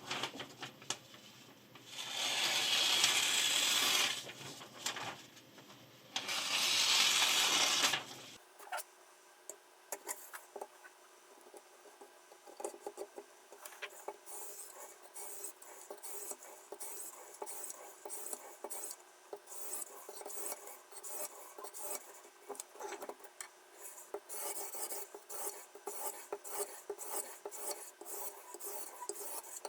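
A sharpening stone on a guided knife sharpener rasping along a kitchen knife's steel edge in many short, quick strokes. Two louder, longer hissing strokes come in the first eight seconds.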